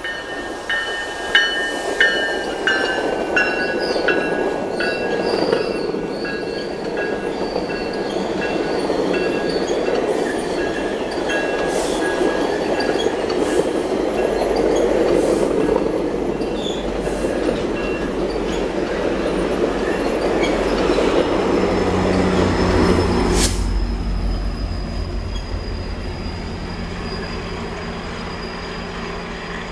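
GO Transit bilevel commuter train rolling past, its steel wheels making a steady rolling rumble on the rails. High steady squeal tones sound from the wheels in the first half, and the wheels click over rail joints about every second and a half. Near the end the low drone of the diesel locomotive's engine joins in as it passes.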